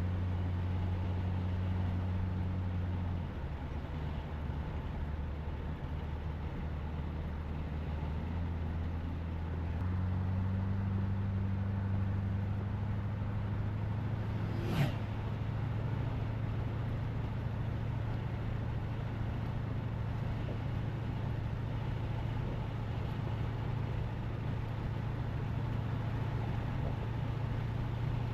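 1976 Cadillac Eldorado's 500 cubic-inch V8 running on the road as a steady low drone, its note shifting about three seconds in and again about ten seconds in. A single sharp click comes about halfway through.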